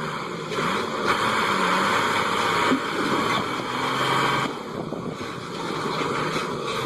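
A vehicle engine running, with a loud rushing hiss over it from about half a second in until about four and a half seconds.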